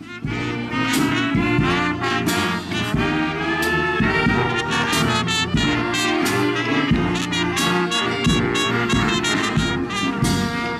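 Brass band playing a tune, trumpets and trombones over percussion hits.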